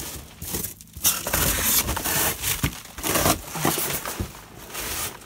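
Rigid foam board insulation being pulled and broken away from a hollow-block foundation wall: a run of irregular scraping and cracking noises, busiest through the middle.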